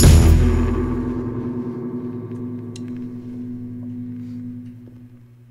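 A band's last chord ringing out after the song ends: a low held chord slowly fading away over about five seconds, with the cymbal shimmer gone within the first second or two.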